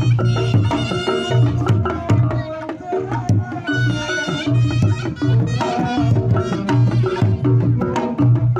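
Reog Ponorogo gamelan music: kendang drumming with deep, regular low strokes, under a wavering reedy slompret melody.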